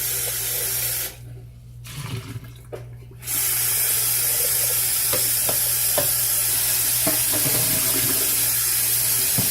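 Kitchen tap running into a sink while coffee grounds are rinsed out of a French press: a short run of water in the first second, then the tap on again from about three seconds in and running steadily, with a few clinks of the press against the sink.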